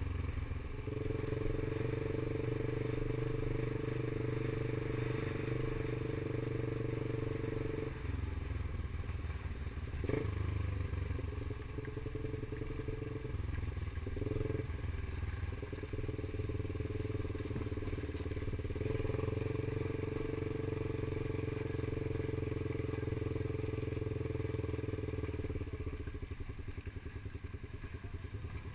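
Adventure motorcycle engine running under way on a gravel road, heard from on board. The note shifts several times as the rider changes gear and throttle, with one knock about a third of the way in, then it drops and fades near the end as the bike slows to a stop.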